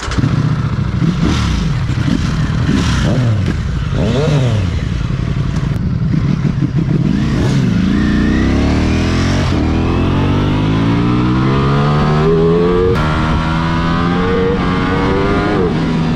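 Ducati Streetfighter V4 S's 1103 cc V4 engine, with several quick throttle blips that rise and fall in pitch in the first few seconds. The bike then accelerates, its note climbing steadily with a few step changes as it shifts up through the gears.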